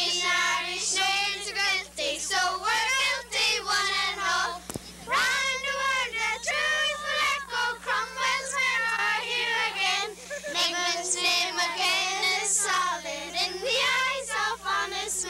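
A group of young children singing together without accompaniment, with a click and a short break about five seconds in.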